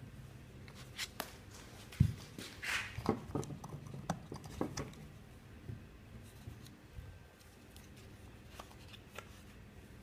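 Plastic RV toilet flush pedal with a 3D-printed insert being handled and turned: light clicks, taps and rubbing. There is a sharp knock about two seconds in and a cluster of clicks over the next few seconds, then only occasional ticks.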